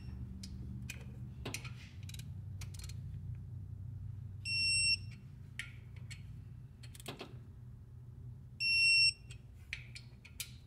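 Digital torque wrench beeping twice, a steady high tone of about half a second each time, signalling that the bolt has reached its preset torque, around 18–22 ft-lb. Short ratchet clicks and light metal knocks come between the beeps.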